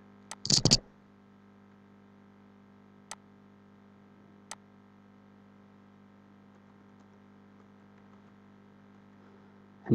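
Two faint computer clicks about a second and a half apart, over a steady low electrical hum, after a brief bit of voice about half a second in.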